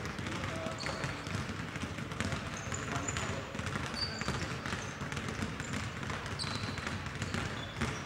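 Basketballs bouncing on a gym court in an irregular stream of knocks, with frequent short, high-pitched sneaker squeaks.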